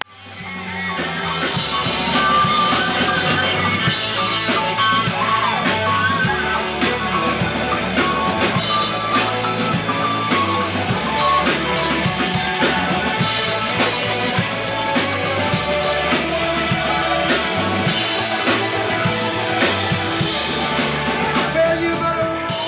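Rock band playing live: electric guitars over a drum kit with a steady beat.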